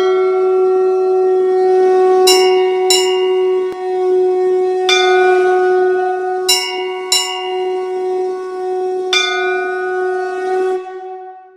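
Conch shell blown in one long steady blast, with a brass temple bell struck about seven times over it, several strikes in quick pairs. The conch dies away near the end.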